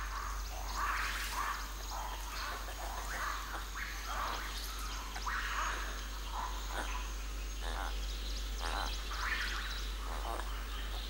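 Forest animal calls: short chirps and squeaks repeated at irregular intervals, over a faint steady high-pitched tone.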